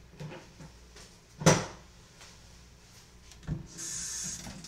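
Kitchen cupboard and a pan being handled: a few light knocks, one sharp knock about a second and a half in, another knock about three and a half seconds in, then a brief hiss near the end.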